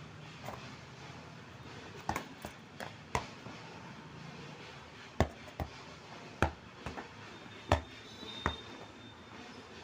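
A football being kicked and bouncing on a hard rooftop floor: a string of sharp, irregular thuds, a few close together about two seconds in and more spread out from about five to eight and a half seconds.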